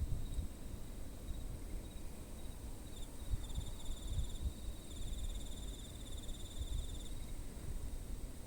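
Insects singing in high, pulsed trills that come and go in short runs, the longest from about five to seven seconds in, over a low steady rumble.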